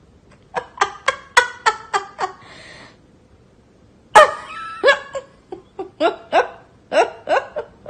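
Two quick runs of short, high-pitched vocal bursts, about four a second, with a pause between them; the second run opens with the loudest burst.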